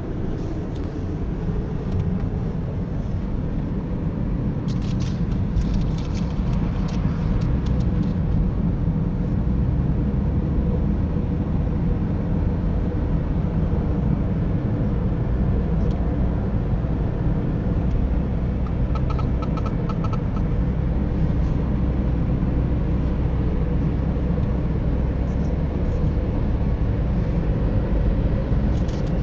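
Steady low rumble of engine and tyre noise inside a moving car's cabin. There are brief clusters of faint clicks about five to eight seconds in and again around nineteen seconds.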